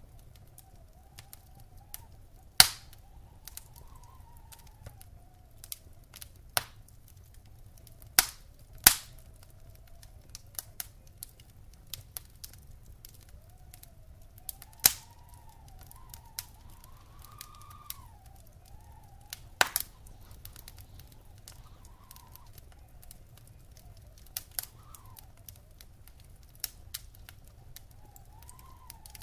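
Wood fire crackling in a fireplace: irregular sharp snaps and pops, about five of them much louder than the rest, over a low steady rumble. A faint whistle rises and falls throughout.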